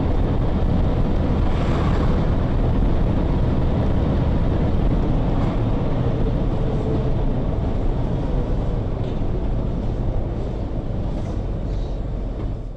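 Engine and road noise of a moving vehicle heard from inside its cab: a steady low rumble while driving.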